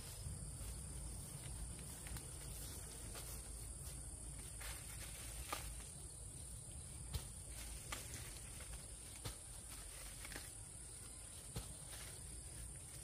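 A steady high-pitched insect drone over a low rumble, with occasional light clicks and rustles.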